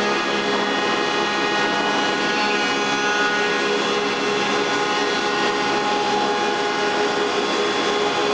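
Flagman 240 four-sided timber profiling machine running: its motors and spinning cutter heads make a loud, steady whine with many tones held level throughout.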